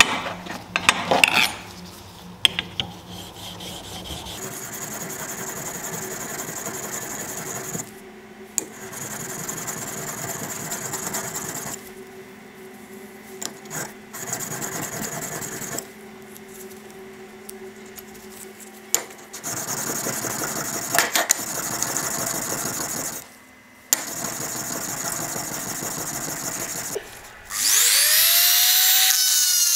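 A rusty steel compass leg is rubbed along an oiled sharpening stone, a steady scraping hiss in stretches of a few seconds with short pauses between them. Near the end a small rotary tool starts up, its whine rising in pitch as it comes up to speed.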